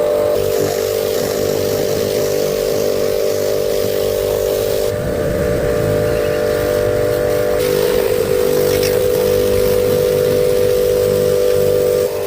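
A motor engine running at a steady speed, with a constant hum. The sound changes abruptly about five seconds in and again a little later.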